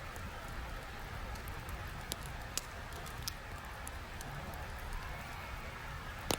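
Steady rush of flowing river water, with a few separate sharp clicks.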